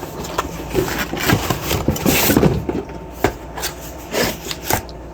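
Cardboard box and packaging being rummaged through, with irregular rustling, scraping and light knocks as parts are pulled out.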